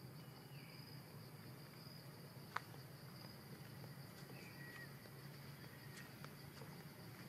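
Faint forest ambience: insects trilling steadily at a high pitch over a low hum, with one sharp click about two and a half seconds in.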